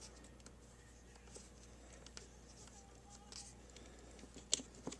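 Quiet handling of small plastic clipper parts and wires: a few faint clicks and taps over a low steady hum, with one sharper click near the end as a part is set into place.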